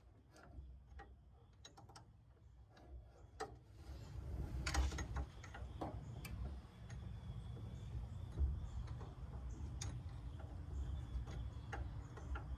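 Faint, irregular clicks and ticks of a wrench and hands working on metal at a car's brake master cylinder and its line fittings. A low rumble underneath gets louder about four seconds in.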